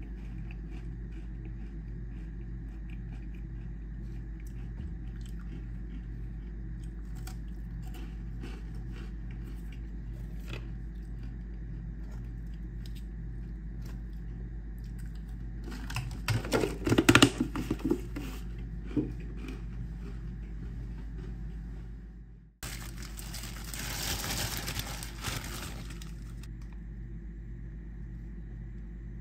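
Crunchy chocolate chip cookies being broken apart by hand, with small crackles throughout and a loud burst of crunching a little past halfway. Near the end, a few seconds of a plastic bread bag rustling.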